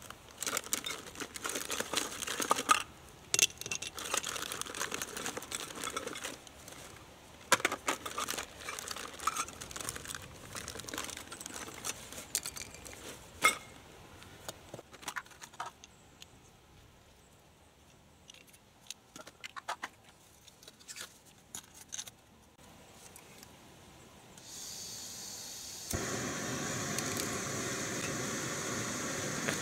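A portable camp stove being set up: clicks and clatter of its parts being handled, then about 24 seconds in a thin hiss of fuel starts, and a couple of seconds later a click as the burner lights and it burns with a steady rushing sound.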